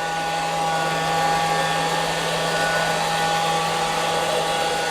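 Robot vacuum cleaner running as it drives across the floor: a steady motor whir with a held high whine and a low hum.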